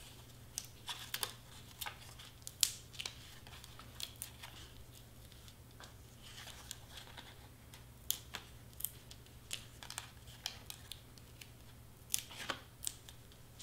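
Faint crinkles, taps and snips of hands working with cardstock and double-sided foam tape, peeling tape backing and pressing the pieces onto paper.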